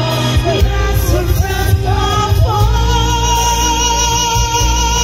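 A woman singing into a microphone over amplified backing music through a PA sound system; about halfway through she holds one long note.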